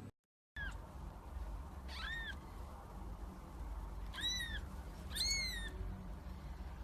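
Kitten mewing: four short, high-pitched mews, each rising then falling in pitch, the last two loudest, over a low steady hum.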